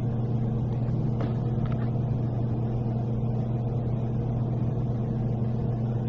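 Steady low hum with a few faint overtones above it, unchanging throughout. Two faint ticks come a little over a second in.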